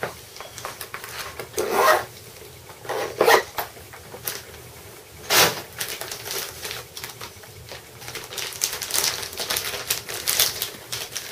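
Packaging of an inflatable swim ring being handled and opened: a few sharp rustles and knocks about 2, 3 and 5 seconds in, then plastic packaging crinkling over the last few seconds.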